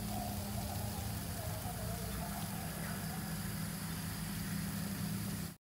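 Steady low mechanical hum like an idling engine or motor, cutting off abruptly near the end.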